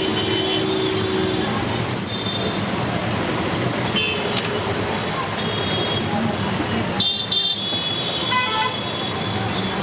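Road traffic din with short vehicle horn toots coming and going, the loudest a double toot a little past the middle.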